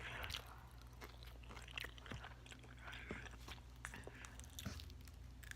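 Crispy fried chicken being chewed, with irregular crunches, over a faint steady low hum.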